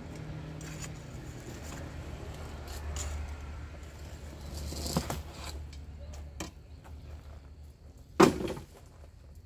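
Scattered knocks and scrapes of a long-handled hand tool working rubble and debris on the ground, with one loud thump about eight seconds in. A low steady rumble runs underneath.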